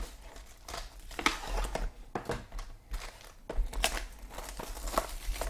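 Plastic wrapping crinkling and rustling as sealed trading-card boxes and packs are opened and handled, with scattered short crackles and taps.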